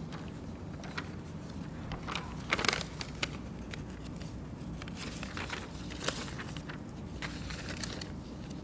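Sheets of paper rustling and being shuffled at a podium microphone, in short scattered crackles with a busier patch about two and a half seconds in, over a low steady hum.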